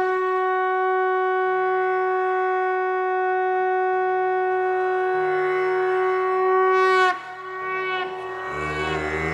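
A single long, steady blown note with a bright, horn-like sound, held for about seven seconds and then cut off. A soft low drone continues after it, and tabla and sitar music starts near the end.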